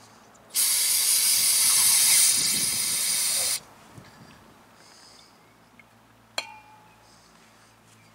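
Aerosol brake cleaner spraying through its straw nozzle onto a brake caliper: one steady hiss of about three seconds that cuts off sharply. A single sharp click follows a few seconds later.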